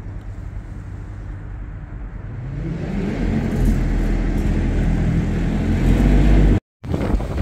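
A vehicle engine running, a low steady hum that grows louder over a few seconds and stops abruptly at a cut near the end.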